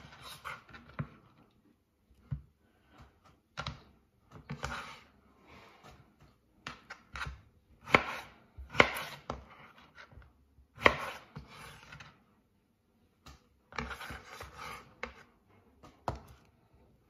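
Kitchen knife cutting through peeled mango and knocking on a wooden chopping board, in irregular strokes with gaps between, a few of them sharp knocks.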